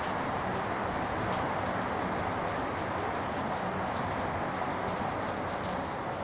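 Steady rain from a storm: an even hiss of falling rain with faint scattered drop ticks, at a constant level throughout.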